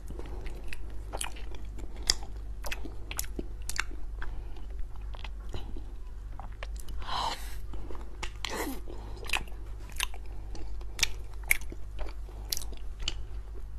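Wet, sticky mouth sounds of eating a soft cocoa-dusted mochi cake with a runny chocolate filling: many sharp lip smacks and chewing, with two longer wet bursts about seven and eight and a half seconds in. A low steady hum lies underneath.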